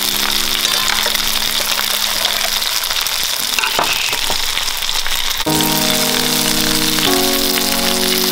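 Oil sizzling and crackling steadily as squares of pressed sushi rice shallow-fry to a crisp crust in a skillet. Background music plays held chords at the start and again from about five seconds in.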